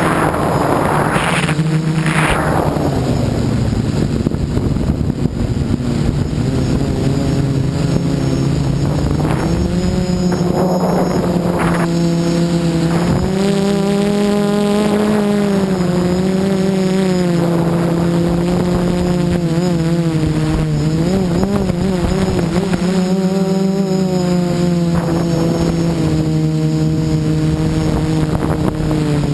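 Xaircraft X450 Pro quadcopter's Cobra 2213 brushless motors and propellers droning in flight, the pitch rising and falling as the throttle changes. Two short rushes of noise come in the first couple of seconds.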